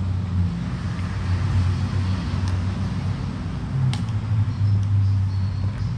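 Steady low mechanical hum, with a few brief light clicks over it.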